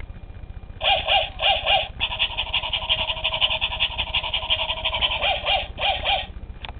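Battery-operated mechanical toy dog barking through its small speaker: two double barks about a second in, a long unbroken call of about three seconds, then two more double barks. Its motor hums steadily underneath, and there is a single click near the end.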